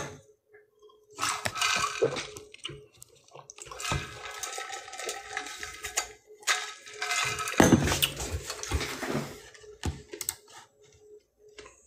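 Someone drinking from a plastic cup close to the microphone: three stretches of rushing, liquid noise, with short quiet gaps and small clicks between them.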